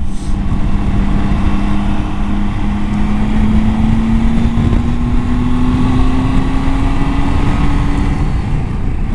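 Triumph Tiger 800 XCA's three-cylinder engine pulling under steady acceleration, its note climbing slowly, over the rush of wind and road noise at speed.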